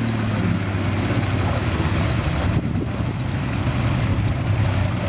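Motorboat engine running steadily, with a rushing noise over it as the boat moves under way.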